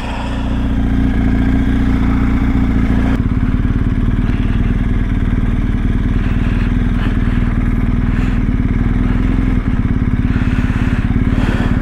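BMW R1250 GS boxer-twin engine idling steadily with the bike stopped; its low rumble eases a little about three seconds in.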